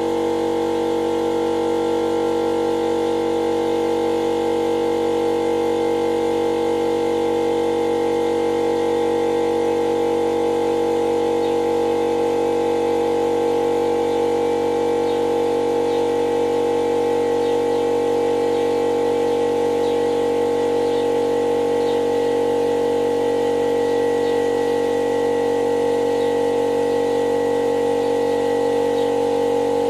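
Electric air compressor running with a steady hum, inflating a motorcycle tyre.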